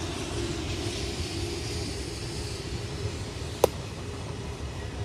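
Steady outdoor rumble with a faint hiss above it, and one sharp crack about three and a half seconds in.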